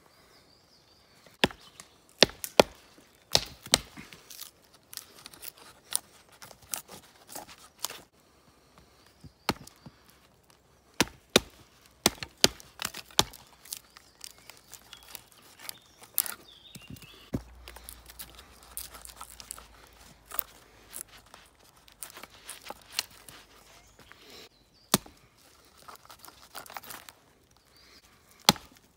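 Wooden baton knocking on the spine of a 1075 carbon-steel bushcraft knife, driving the blade down through small pieces of wood to split them. The result is a string of sharp, irregular knocks, with wood cracking and splitting between them.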